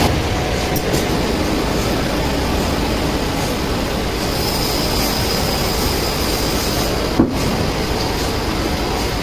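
Band sawmill machinery running with a steady, loud mechanical noise, with a short knock about seven seconds in.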